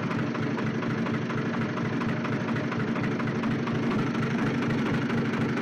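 Tractor engine running steadily, an even, unchanging note.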